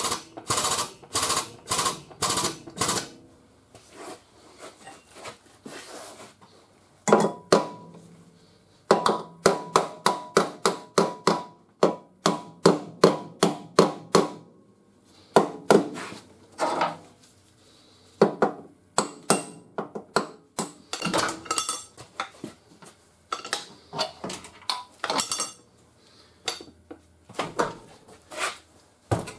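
Body hammer striking crinkled automotive sheet metal in runs of quick blows, about three to four a second, with short pauses between runs; many blows ring metallically. The panel is being worked while a chain on welded pull tabs holds it under a pull.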